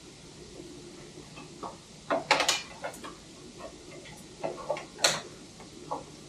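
Tools and small parts being handled during motorcycle bodywork: irregular light clicks and knocks, a cluster about two seconds in and a sharper one about five seconds in.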